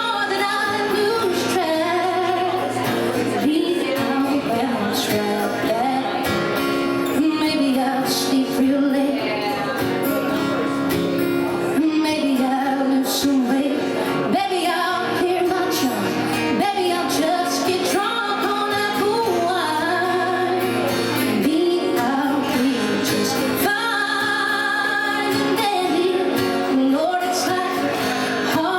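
A song with a woman singing over guitar accompaniment.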